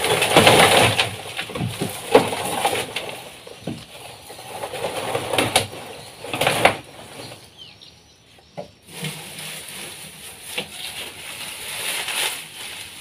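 Dry garden waste (dried stalks, roots and leaves) rustling and crackling as it is stuffed by hand into a large bucket for composting, in irregular bursts of crunching with sharp snaps and a brief lull about two-thirds of the way through.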